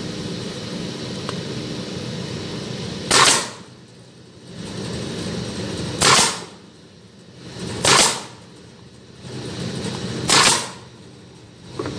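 Meite pneumatic brad nailer firing four times, sharp single bangs at uneven intervals, driving brads through a wooden disc into a wooden block. A steady mechanical hum runs underneath.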